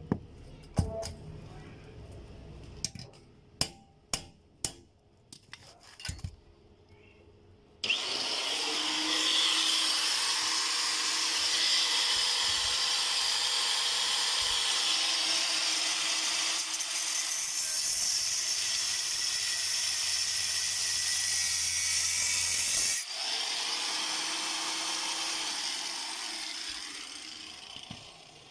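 Clinks and taps as the metal seat frame is handled, then about eight seconds in a handheld electric power tool starts working on the metal and runs steadily for about fifteen seconds, drops to a lighter load and fades out near the end.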